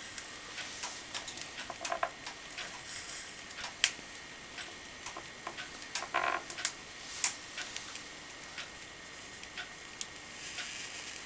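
Hot wire cutter working slowly through a styrofoam block, giving irregular small clicks and crackles over a faint hiss. The sharpest click comes about four seconds in, with a cluster around six seconds.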